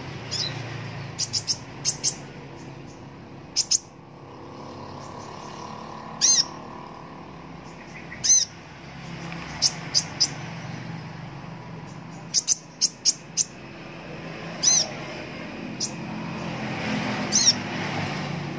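Purple-throated sunbird (kolibri ninja) giving short, high chirps: scattered single notes, quick runs of three or four, and several sharp falling calls. A low steady hum runs underneath.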